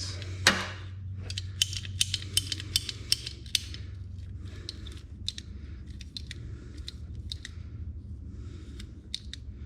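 Old PVC pipe cutters working through a thick 4-gauge copper battery cable: a fast run of sharp clicks for about two seconds, then slower, scattered clicks.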